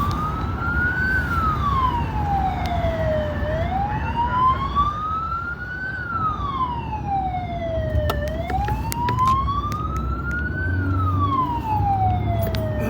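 Emergency-vehicle siren sounding a slow wail. Each cycle rises for about a second and falls for about two, repeating roughly every four and a half seconds, over the low rumble of a vehicle on the road. A few sharp clicks come in the second half.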